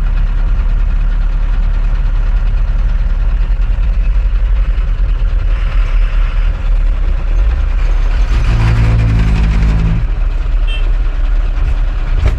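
Eicher Terra 16 tipper's diesel engine running steadily, heard from inside the cab while driving on a rough dirt road. A low steady tone sounds for about a second and a half about eight seconds in.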